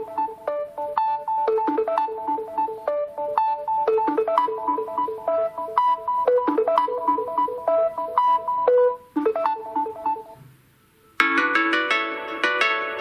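Samsung Galaxy S21 Ultra ringtones playing: a melody of short, quick synthesized notes that stops about ten seconds in, then after a brief pause a different, brighter ringtone starts.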